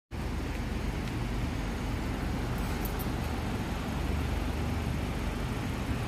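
Steady low background rumble with no distinct event.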